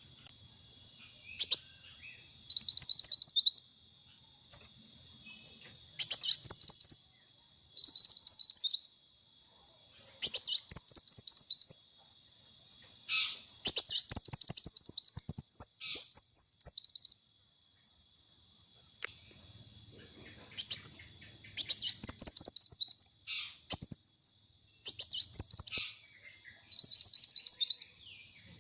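Sunbird song: bursts of rapid, high chirping trills about a second long, repeated every second or two, over a steady high-pitched tone.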